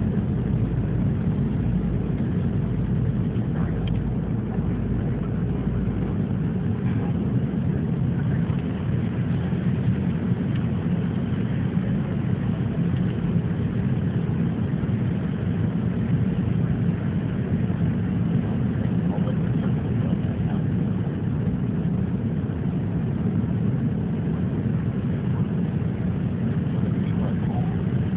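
Steady airliner cabin noise on descent: the engines and rushing air heard from inside the passenger cabin, a constant low-heavy rumble.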